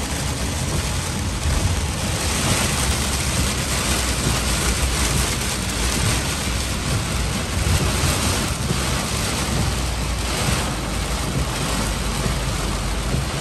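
Heavy wind-driven rain beating steadily on a moving 2007 Chevrolet Silverado 3500 pickup, with a low road and engine drone underneath.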